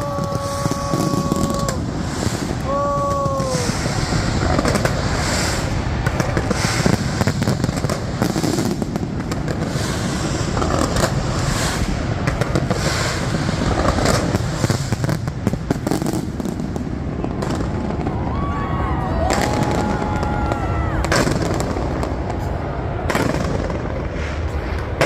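New Year fireworks display going off: a dense, continuous barrage of bangs and crackling over a constant low rumble. A few long held tones sound over it near the start and again about two-thirds of the way through.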